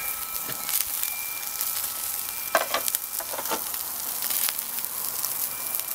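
Pork chops sizzling and crackling on a hot kettle grill's grate. A few metal knocks and clanks come about halfway through as cookware is moved on the grill.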